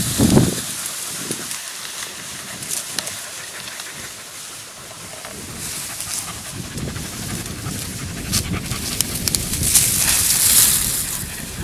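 Podenco Andaluz hunting dog panting hard and rhythmically, overheated and worn out from working through the reeds in summer heat. There are scattered clicks, and a louder noisy stretch comes about ten seconds in.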